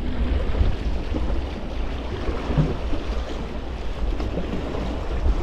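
Wind buffeting the microphone with a steady low rumble, over the wash of small sea waves at the shoreline.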